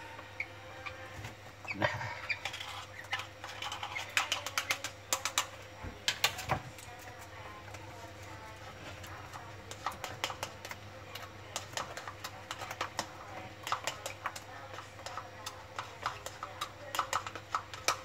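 Baby lovebird chicks making rapid, irregular clicking and ticking sounds in clusters during spoon hand-feeding, about two seconds in, from about four to seven seconds, and again near the end.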